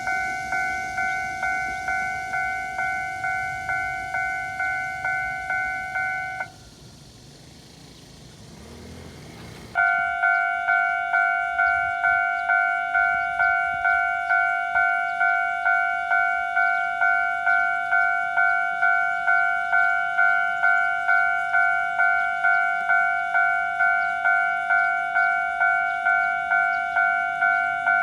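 Railway level-crossing warning bell ringing, a repeating ding at about three strokes every two seconds. It stops about six seconds in, leaving quiet background noise, and starts again abruptly about ten seconds in.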